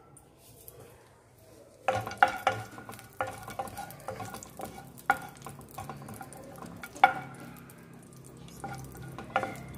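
Metal spoon stirring cashews and raisins in ghee in a metal kadai, knocking against the pan so it rings, in irregular strokes that start about two seconds in, the loudest near the start and around seven seconds.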